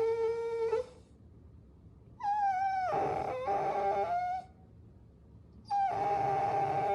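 Puppy whining in long, high-pitched whines separated by short pauses. One whine fades out just under a second in, a second runs from about two to four seconds in with a drop in pitch at its start, and a third begins near the end.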